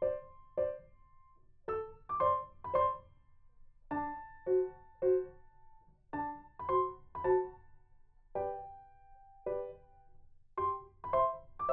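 Background music: a slow, gentle piano melody of single notes played in short phrases with pauses between.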